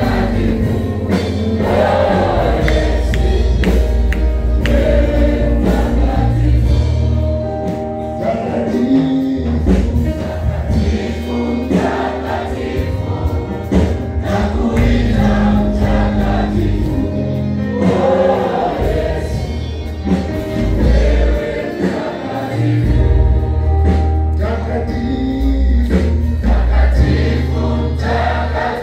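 A church congregation singing a gospel worship song together, led by a singer on a microphone, over an amplified band with a deep bass line and a steady beat.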